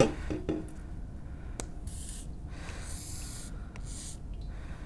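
Hand pump bottle dispensing soap onto wet hands: a few soft clicks and two short hissing squirts about two and three seconds in, over quiet rubbing of wet hands.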